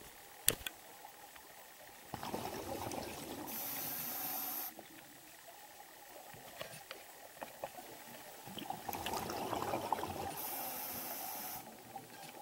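Scuba diver breathing through a regulator underwater: two breaths several seconds apart, each a burble of exhaled bubbles ending in a high hiss. A single sharp click about half a second in.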